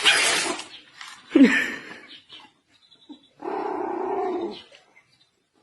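An animal's calls: a loud call that ends about half a second in, a short one about a second and a half in, and a steadier call lasting about a second near the end.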